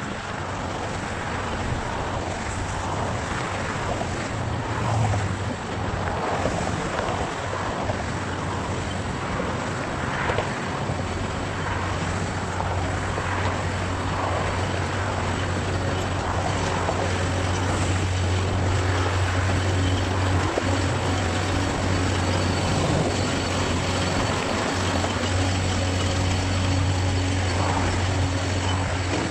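Road Zipper barrier transfer machine's engine droning steadily as it moves along the lane barrier, with passing car traffic. The low drone grows stronger from about ten seconds in as the machine comes close.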